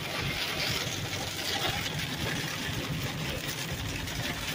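Steady noise inside a car's cabin in a rainstorm: the car's engine running under a constant hiss of rain hitting the windshield and roof.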